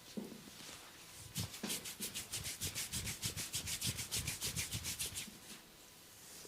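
A barber's hands rubbing briskly and rhythmically in a massage, about six hissing strokes a second, from about a second and a half in until about five seconds in.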